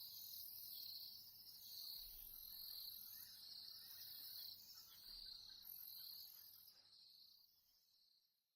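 Faint insect chorus: a high-pitched shrill that swells and ebbs in waves, fading out over the last second or two.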